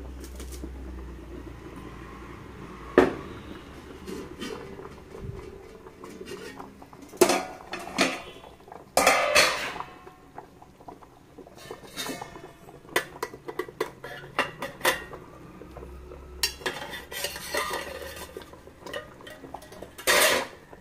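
Stainless-steel lids and plates clanking and scraping as they are lifted off a steamer pot, with a heavy stone mortar moved off the lid. The clanks come irregularly, the loudest about three seconds in, near the middle and near the end.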